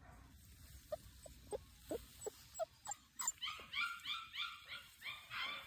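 Chocolate Labrador retriever puppy whimpering: a few faint squeaks at first, then from about halfway through a run of short, high-pitched, rising whines, roughly three a second.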